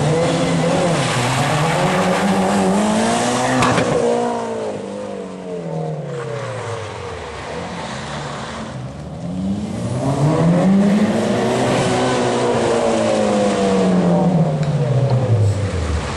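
Rally car engine accelerating hard and then backing off, twice. The revs climb and fall once in the first half, then climb and fall again in the second half.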